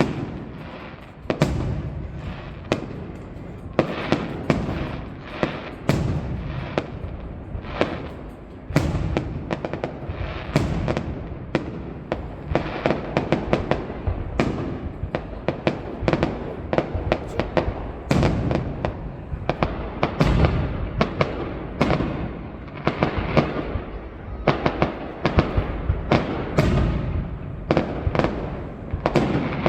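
High-altitude aerial fireworks shells bursting in quick succession: a dense, unbroken string of sharp bangs and crackles, several a second.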